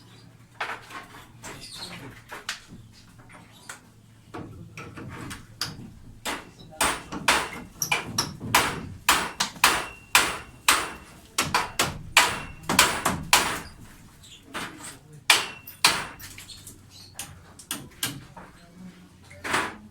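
Hammer blows striking a concrete slab as it is broken up: sharp, irregular strikes, sparse at first, then coming about two a second through the middle.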